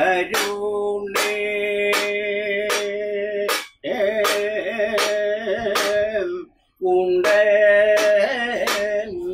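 A man singing a Kathakali song in long held phrases, breaking off briefly twice, over a sharp beat about twice a second.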